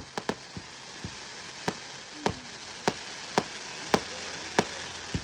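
Fireworks going off: a string of sharp bangs and pops, about one every half second and irregular, over a steady hiss.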